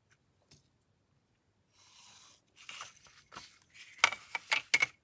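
A pencil scratching a guide line on card along a clear acrylic ruler, in short irregular strokes that start about halfway through and are loudest near the end.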